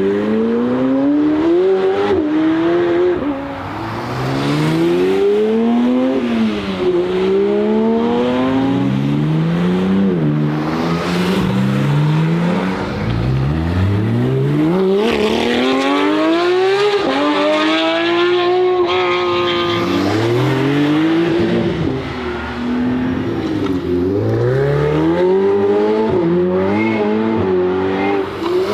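McLaren 765LT Spider's twin-turbo V8 accelerating hard several times, its note climbing through each gear and dropping back sharply at every upshift. In the middle the note rises high and then falls away.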